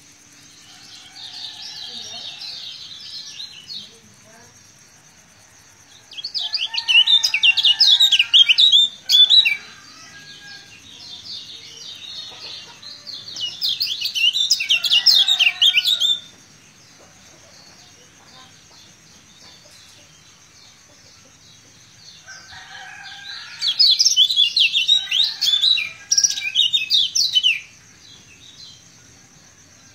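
Caged kecial kuning, a white-eye, in full song: rapid high twittering in three loud outbursts of a few seconds each, with softer chatter between them.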